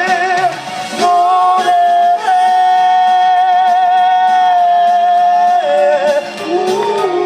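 A pop song performed live: a singer holds long, drawn-out notes with vibrato over the band's backing music. The pitch steps down about three-quarters of the way through.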